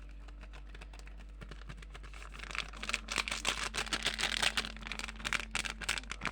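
Close-up handling of small plastic or paper items: rapid crinkling and clicking, faint at first and much denser and louder from about halfway through, over a steady low background hum.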